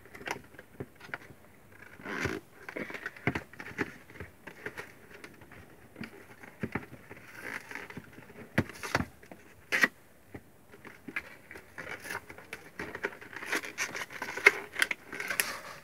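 Long cardboard poster box being handled and opened on a tabletop: irregular taps, knocks and scrapes of cardboard and paper.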